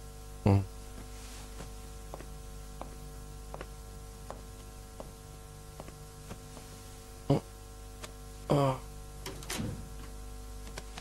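Clock ticking steadily, a little faster than once a second, over a steady electrical hum. In the second half, a man waking makes a few short vocal sounds.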